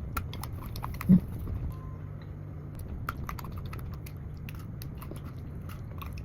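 Close-up crunchy chewing of a dark chocolate bar with freeze-dried strawberry pieces: irregular sharp crackles and clicks, with one louder bite or thump about a second in, over a steady low hum.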